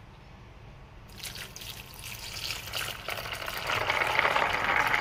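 Water poured from a plastic jug onto raw peanuts in a plastic bowl, splashing as the bowl fills. The pour starts about a second in and grows louder toward the end.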